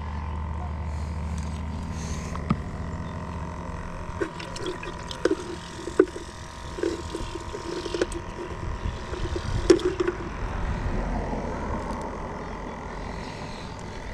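Irregular clicks and knocks from handling a spinning rod and reel and a plastic bait container, over a low steady rumble that fades after the first few seconds.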